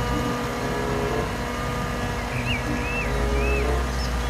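Heavy tipper truck's diesel engine running steadily with a deep rumble while the raised body unloads soil. The rumble swells for a couple of seconds in the middle.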